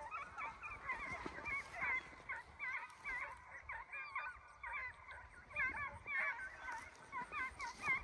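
A pack of deer hounds baying together while running a deer: many overlapping short calls throughout, with no pause.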